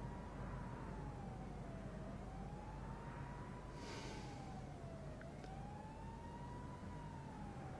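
A faint siren wailing, its pitch rising and falling smoothly about once every three seconds, over a low steady hum. A brief rush of noise about four seconds in.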